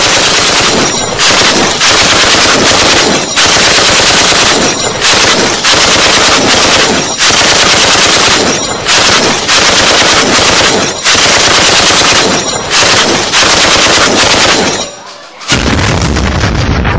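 Recorded machine-gun fire played loudly over the hall's speakers, in bursts a second or two long with brief breaks. Near the end it stops and a deeper, heavier sound begins.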